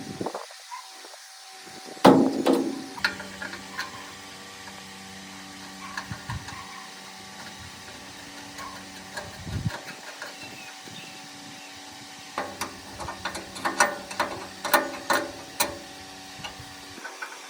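Workshop handling sounds: a loud knock about two seconds in, scattered clicks, and a quick run of taps and clicks near the end, over a steady hum.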